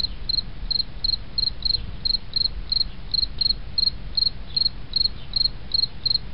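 Cricket chirping, short chirps about three a second, over a steady low rumble.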